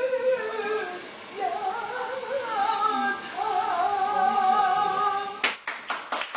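A woman singing a slow, ornamented melodic line with long held notes that waver in pitch, ending in a few sharp hand claps.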